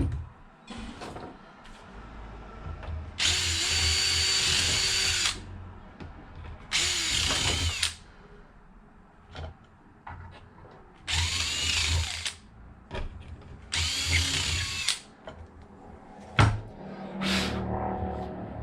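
Power drill running in four separate bursts of one to two seconds each, drilling four mounting holes for a steering servo pedestal mount in an RC car chassis, with small clicks and knocks of handling between bursts.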